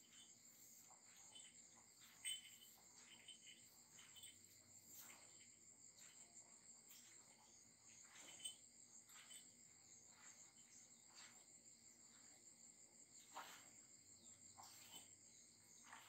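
Near silence with faint, steady high-pitched insect chirring, and a few soft clicks scattered through it.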